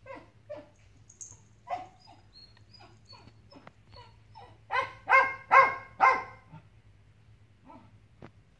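Shaggy white dog barking: four loud barks in quick succession about five seconds in, with fainter short yips scattered before and after.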